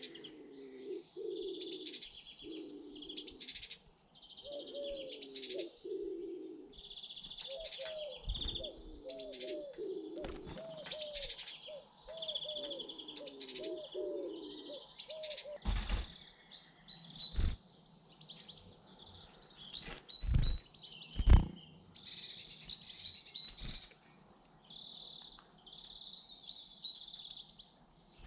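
Small garden birds chirping and twittering at a feeder, while a pigeon coos in repeated low phrases through the first half. In the second half come several sharp knocks, the loudest a little after twenty seconds.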